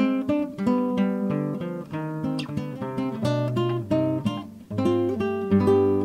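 Background music: an acoustic guitar playing a picked melody, its notes plucked in quick succession and ringing out.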